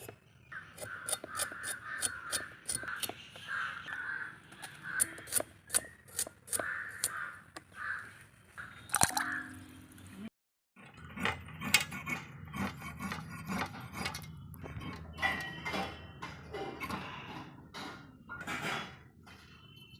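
Crows cawing repeatedly in the background over a run of sharp clicks and taps from cooking utensils. About halfway the sound cuts out briefly, then resumes with more clinks and knocks over a low rumble.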